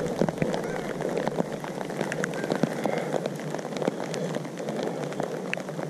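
Light rain pattering, with scattered drops ticking irregularly close by.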